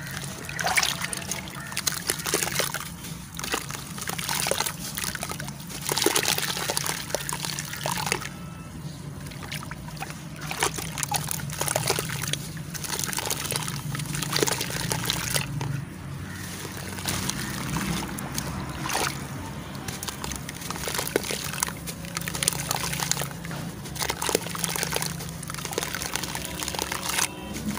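Hands crushing and kneading soft charcoal pieces under water in a bowl, which keeps sloshing and splashing, with irregular crackly squelches as the pieces crumble.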